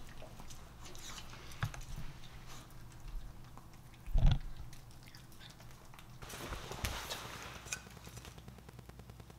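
A Pomeranian picking at and chewing slices of chicken-breast sausage on a wooden board, with small clicks and mouth sounds and one low thump about four seconds in.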